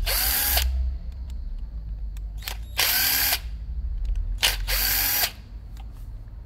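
Cordless screwdriver running in three short bursts, each spinning up and winding down, backing out the screws of a diaphragm carburetor's top cover, with small clicks between the bursts.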